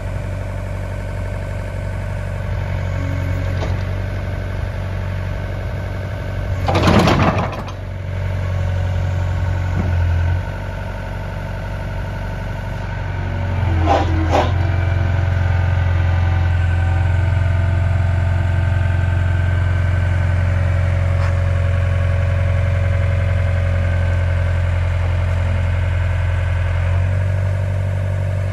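Takeuchi TB175W wheeled excavator's diesel engine running steadily while the machine is held up on its boom and blade. There are two brief loud bursts of noise, about a quarter and about halfway through. After the second burst the engine runs louder under hydraulic load, then eases off near the end.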